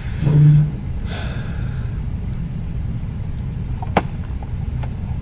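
A person's short low hum followed by a breath, over a steady low background hum, with a single sharp click about four seconds in.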